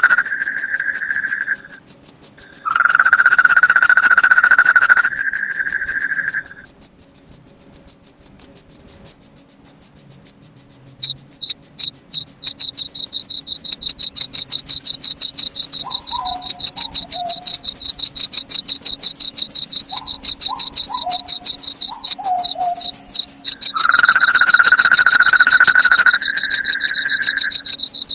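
Night insect chorus: crickets trilling in fast, steady pulses, with a second trill joining partway through. A louder insect drone comes and goes in stretches of a few seconds. Around the middle come two short runs of quick descending chirps from a bird.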